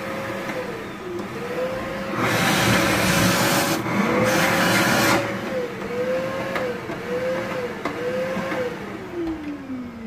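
Repaired Arçelik S6840 canister vacuum cleaner running, its motor note rising and dipping again and again, with a stronger rush of air for a few seconds in the middle. Near the end the motor winds down. The motor is working well again after the repair.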